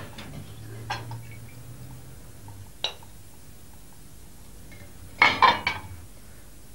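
Ceramic plates and cutlery clinking as dishes are set out on a dinner table: a couple of single sharp clinks, then a louder quick run of clinks about five seconds in.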